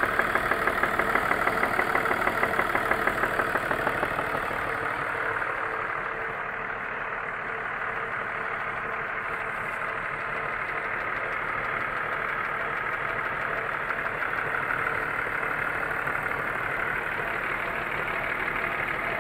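BMW E39's M54 straight-six engine idling with a rhythmic knock, which the owner places around the third cylinder. It runs louder and pulsing for the first few seconds, then settles steadier and a little quieter.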